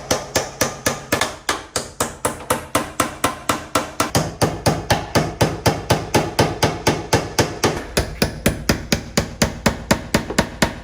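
Hammer striking in a fast, even rhythm, about four to five sharp blows a second.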